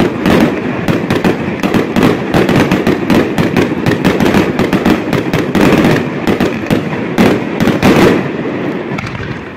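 Aerial fireworks display: a dense, rapid barrage of bursts and crackling, dying down near the end.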